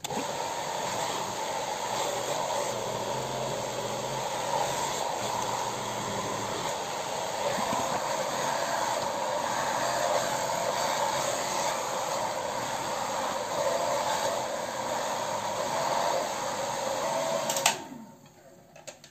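Philips ThermoProtect hair dryer with a diffuser-style head blowing steadily, with a slightly wavering hum. It switches on at once at the start and shuts off near the end.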